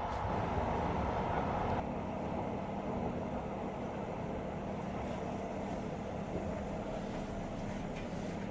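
Cabin noise of a Karlsruhe Stadtbahn tram-train running on mainline track: a steady rolling rumble with a low, even hum. About two seconds in the sound turns duller.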